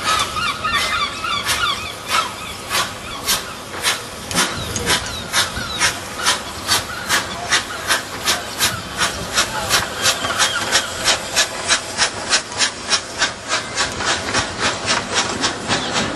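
A 15-inch gauge Romney, Hythe & Dymchurch Railway steam locomotive pulling away with its train. Its exhaust chuffs come sharp and regular, quickening steadily from under two a second to about four a second as it gathers speed, with a hiss of steam.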